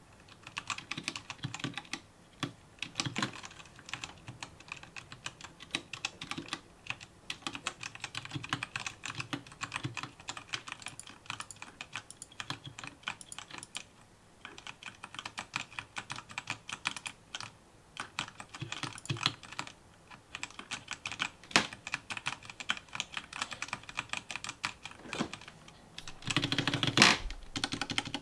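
Typing on a mechanical keyboard: fast runs of key clicks with short pauses, and a louder, denser flurry of keystrokes near the end.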